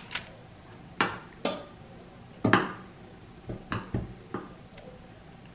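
A utensil clinking and knocking against cookware and the air fryer basket while raw chicken drumsticks are moved into the basket. About eight sharp knocks come at uneven intervals, the loudest about one and two and a half seconds in.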